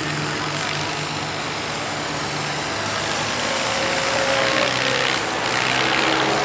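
Fendt farm tractor's diesel engine running steadily under load as it pulls the weight-transfer sled, growing louder about four seconds in.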